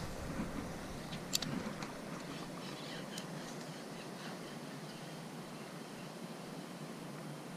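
Casting and reeling in with a spinning rod and a Shimano Stradic CI4+ spinning reel: a sharp click about a second and a half in, then a steady faint hiss with small ticks from the reel and handling.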